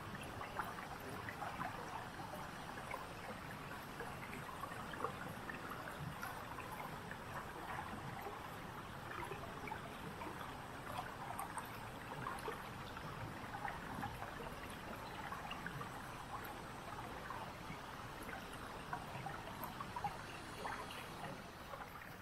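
Waterfall water trickling and splashing steadily, with many small sharp drips and splashes over an even rush.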